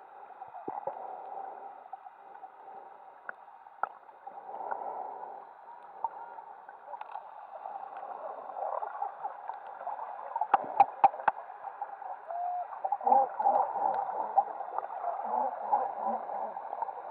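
Muffled underwater water noise, bubbling and gurgling, louder in the second half. A quick run of four sharp clicks comes about ten and a half seconds in.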